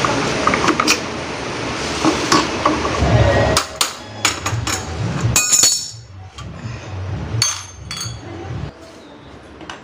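Irregular metallic knocks and clinks of hand tools against a child's bicycle frame while its seat is being taken off and refitted, many in the first six seconds and fewer after.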